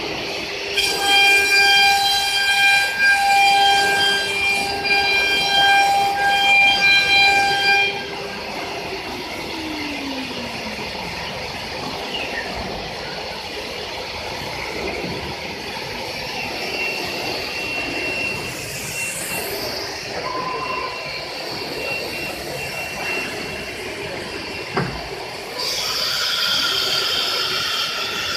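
CNC router's HQD 9 kW automatic-tool-change spindle whining at high speed, a steady high tone with overtones, then spinning down with a falling pitch about eight seconds in. A sharp click comes a few seconds before the end, followed by a louder hiss with high tones.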